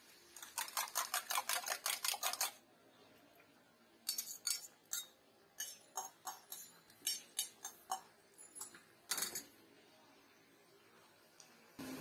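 A metal spoon beating egg in a stainless steel mug: a quick, even run of clinks, about six a second, lasting some two seconds. Then a metal utensil clinks and scrapes irregularly against a flat iron griddle as the beaten egg is spread.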